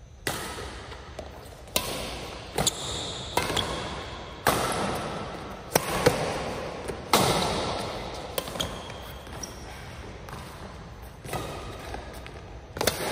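Badminton rally: sharp racket strikes on the shuttlecock, about one every second or so at an uneven pace, each with a short echo in a large hall.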